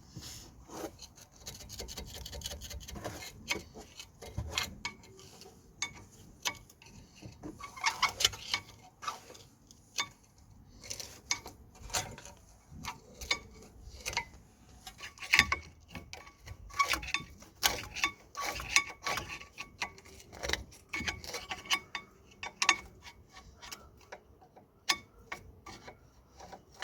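A hand tool scraping brake dust and debris off the inner pad seats of a front brake caliper bracket, in many short, irregular strokes with clicks and ticks.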